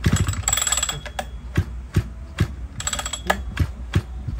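Mitsubishi TL33 33 cc two-stroke brush-cutter engine being turned over by hand for a compression check, which the seller calls excellent: a knock at the start, then steady clicking about two to three times a second with a few short hissing puffs.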